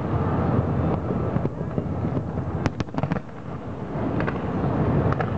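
Aerial fireworks display heard from afar: a continuous low rumble of shell bursts, with a couple of sharp cracks about two and a half to three seconds in and a few more a little after four seconds.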